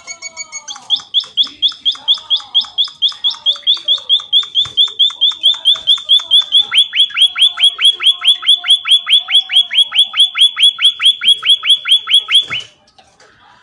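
A bird calling in a long, rapid series of short, sharp, identical notes, about four to five a second, that stops abruptly about twelve and a half seconds in.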